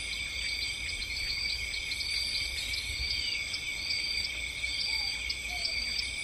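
Steady high-pitched insect chorus, several shrill trills at once, with a short chirp repeating about twice a second over a low steady rumble.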